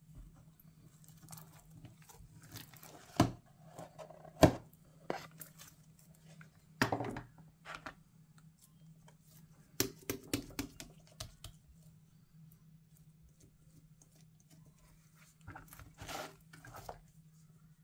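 Thick black glitter slime being cut, giving irregular sticky pops, clicks and crackles, with two sharp pops a few seconds in and more clusters later. A faint steady low hum runs underneath.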